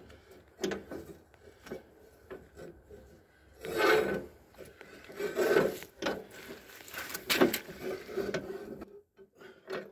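Steel lift arm of a garden-tractor snowblower hitch being threaded into place: metal scraping and rubbing against the frame, with scattered clicks and knocks. The longest scrapes come about four and five and a half seconds in.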